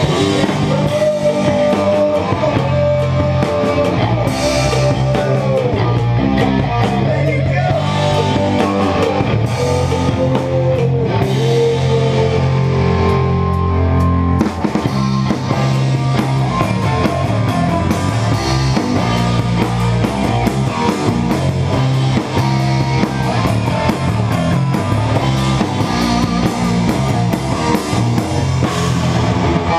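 Heavy metal music: drums, electric guitar and electric bass, with a melody line that bends in pitch in the first half. A four-string electric bass is played along with the recording.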